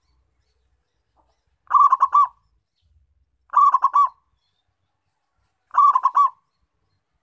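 Zebra dove (local perkutut) cooing: three short phrases about two seconds apart, each a quick run of three or four notes.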